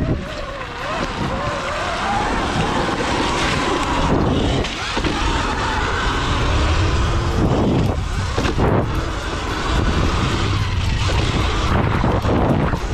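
Wind buffeting an action camera's microphone while riding a Sur Ron X electric dirt bike over a muddy, rutted track. The electric motor's whine rises and falls in pitch in the first couple of seconds, over the steady rush of wind and tyre noise.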